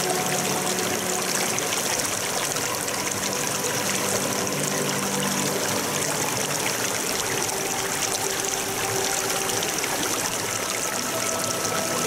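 Shallow stream water running and trickling steadily over stones, a continuous even rush. Faint sustained tones sit underneath it.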